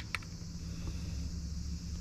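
Steady outdoor background: a constant high-pitched drone of insects such as crickets over a low steady hum.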